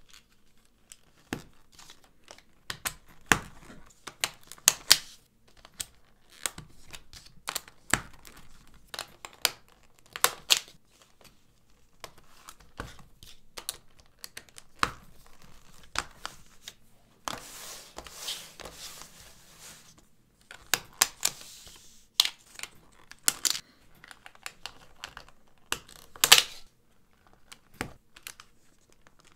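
LEGO plates clicking and snapping as they are pressed onto and pried off one another's studs, with a brick separator, in irregular sharp clicks. A longer stretch of plastic scraping and rattling comes about two-thirds of the way through.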